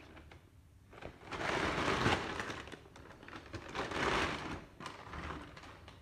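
Plastic shopping bag rustling and crinkling as fruit in mesh net bags is handled inside it, in two main bursts with lighter rustles between.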